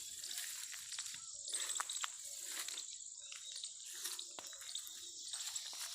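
Steady high-pitched insect drone, cricket-like, with many short, irregular chirps and clicks over it and one sharp click at the end.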